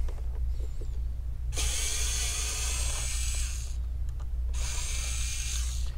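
Handheld electric screwdriver's small motor whirring in two runs, about two seconds and then just over one, backing out the screws that hold the computer's base cover.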